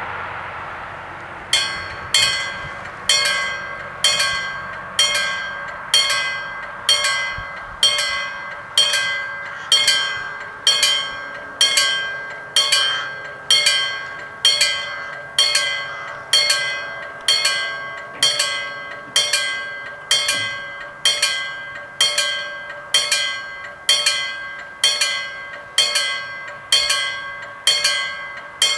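Level crossing warning bell striking in an even rhythm, a little more than once a second, each stroke ringing out and dying away, signalling that a train is approaching and the barriers are coming down. The bell starts about a second and a half in, after a brief fading rush of noise.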